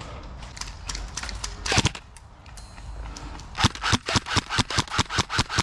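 Airsoft guns firing: a few scattered single shots and one louder crack, then a rapid string of shots at about six a second in the last two seconds.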